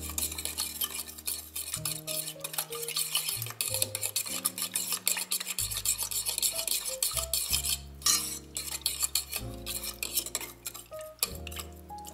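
A metal fork beating milk and eggs in an enamelled steel pot: rapid, continuous clicks and scrapes of the tines against the pot's sides and bottom, with a wet swish of the liquid.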